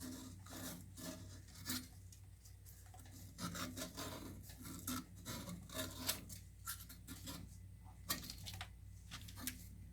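Hand rubbing and scraping on the cut end of a water pipe in short, irregular strokes, smoothing the sharp edge so it will not cut the O-ring of the SharkBite push-fit fitting.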